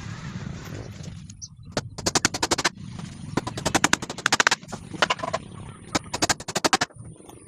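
Power impact driver rattling in three short bursts of rapid hammering clicks, driving screws into wood.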